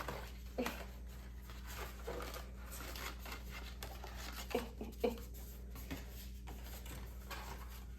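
Paper and plastic rustling and crinkling as a K-pop album's inclusion packet is opened and its cards handled, with scattered light taps and clicks.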